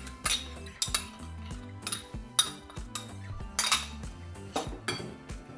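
Metal spoon scraping and knocking thick chia gel out of a small cup into a glass mixing bowl: about half a dozen sharp clinks of metal against the cup and the glass.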